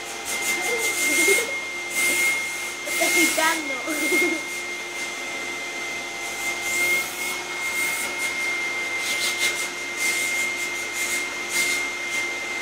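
Vacuum cleaner running steadily with a high motor whine, with irregular scuffing and rubbing noises over it. A couple of short wavering voice-like sounds come about a second in and again around three to four seconds.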